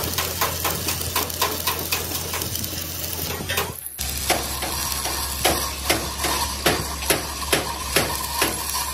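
Hammer blows on steel plate, struck repeatedly a few times a second over a steady low hum. The strikes break off briefly about four seconds in, then carry on evenly spaced.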